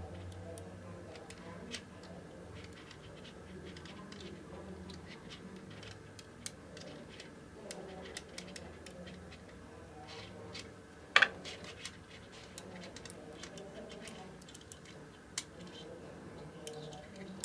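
Small neodymium magnet balls clicking and snapping together as they are pulled apart and fitted into a cluster by hand: scattered, irregular sharp clicks, with one much louder snap about eleven seconds in, over a faint steady hum.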